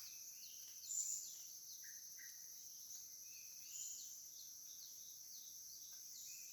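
Tropical forest ambience: a steady high-pitched insect drone, with many short falling bird chirps and a few brief calls over it, one louder call about a second in.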